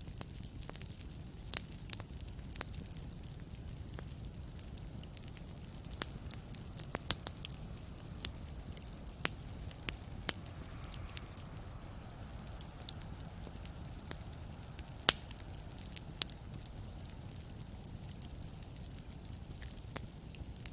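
Wood fire crackling in a fireplace: irregular sharp pops and snaps over a steady low rumble, with the loudest pop about fifteen seconds in.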